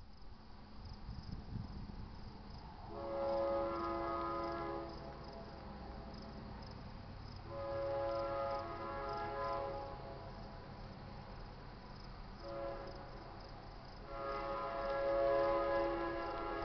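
GE C44-9W diesel locomotive's air horn sounding the grade-crossing signal, long, long, short, long, each blast a chord of several tones. A low rumble runs underneath.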